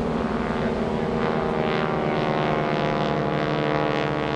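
Pratt & Whitney R-1340 Wasp radial engines of SNJ/T-6 Texan warbirds droning steadily with propeller buzz as two planes climb under power and split apart.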